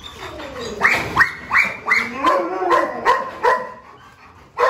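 Dogo Argentino barking, a quick run of barks starting about a second in, then one more bark near the end.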